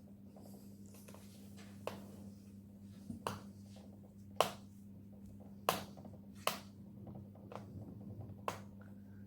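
Sharp small clicks and taps, about six spread irregularly, of a screwdriver working the screws of a laptop's plastic bottom cover, over a steady low electrical hum.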